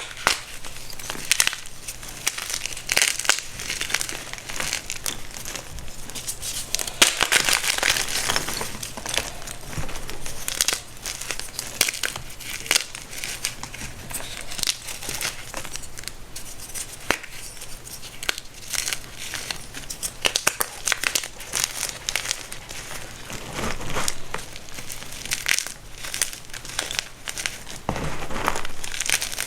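Homemade baking soda being crumbled and crushed: a dense run of small crunches and crackles, louder for a couple of seconds about seven seconds in.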